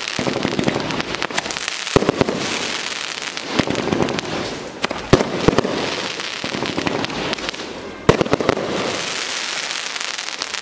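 Dragon Shaman 500 g, 25-shot fan cake firework firing: sharp shots come every second or two, each followed by a dense crackle and hiss from the bursting stars.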